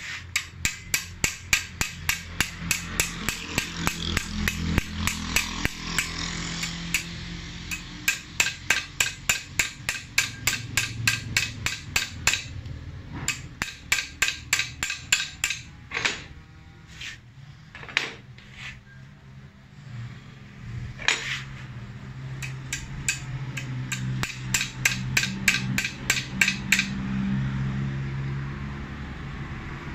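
Rapid metallic tapping of a spanner against a single-cylinder diesel injection pump held in a vise, about three to four sharp taps a second, with a pause in the middle and stopping near the end. A steady low hum runs underneath.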